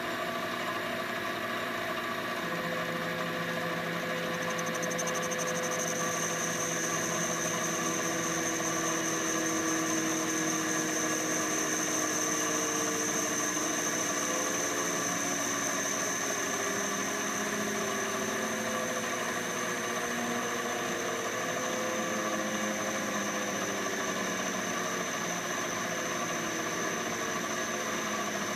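CNC lathe running as a carbide insert cuts a spinning Delrin bar into a dome: a steady machine hum with tones that slowly glide up and down in pitch, and a high whine that comes in about five seconds in.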